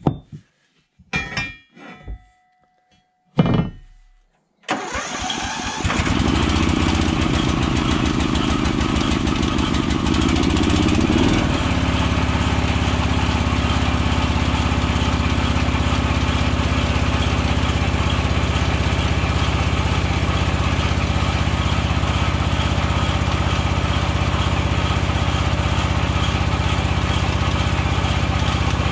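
A few short clicks and knocks, then a ride-on mower's engine starts about five seconds in and runs on. Its low note pulses unevenly at first and settles into a steady run about twelve seconds in.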